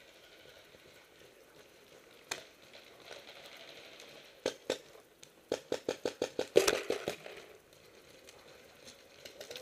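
Paintball markers firing: a single shot about two seconds in, two more a couple of seconds later, then a rapid string of about a dozen shots.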